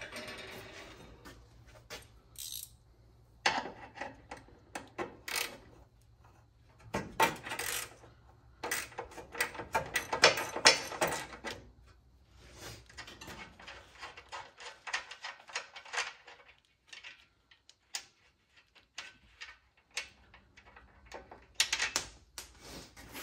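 Hand tools and steel bolts clicking and clinking against a truck's transmission crossmember as its loosely fitted bolts are undone, in irregular bursts, the busiest about ten seconds in.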